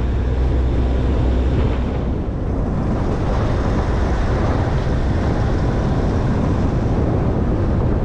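Ute driving along a dirt road: steady engine and tyre noise, with wind buffeting the microphone.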